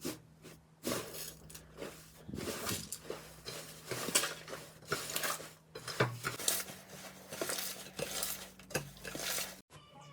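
Slime being squished and worked by hand: a dense run of sticky crackles and pops, several a second, over a faint steady hum. It cuts off abruptly near the end.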